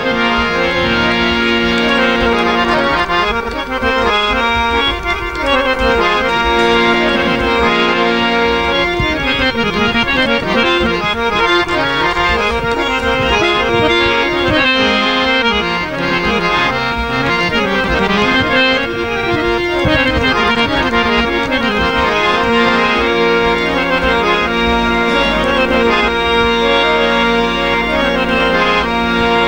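Harmonium playing a lilting instrumental melody of a Punjabi dhamal, with held reed chords and changing notes, and drum strokes underneath.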